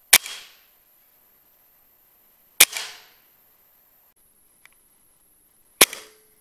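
Three PCP air rifle shots, each a sharp crack with a short decaying tail, the second about two and a half seconds after the first and the third about three seconds later. A faint click comes just before the last shot.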